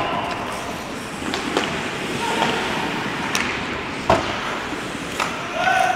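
Ice hockey play: skates scraping on the ice under a run of sharp clacks of sticks and puck, the loudest about four seconds in, with brief calls from players.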